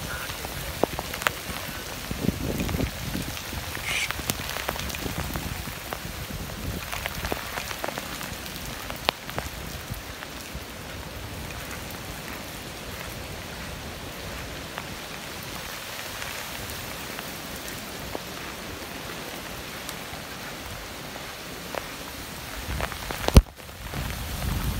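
Steady rain falling, an even hiss with scattered ticks of drops. There is one sharp click near the end.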